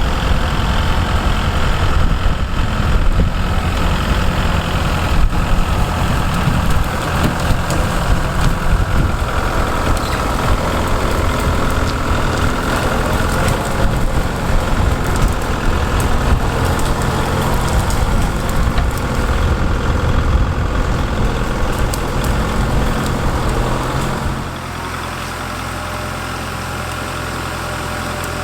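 Kubota MX5200 tractor's diesel engine running hard, with scattered sharp cracks and clanks over it. About 24 seconds in it drops suddenly to a quieter, steady idle.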